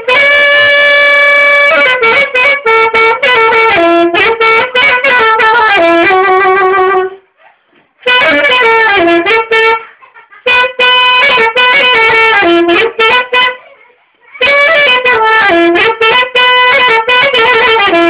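Saxophone playing a melody loudly, in phrases separated by short pauses.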